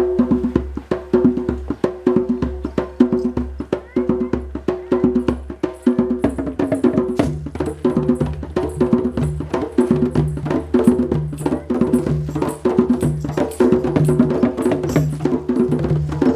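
A live percussive music groove in an interlocking pattern of the kind used in African rhythm and gamelan. It has quick, dense woody strikes and repeating pitched notes over a steady low drone. A lower repeating note pattern joins about halfway through.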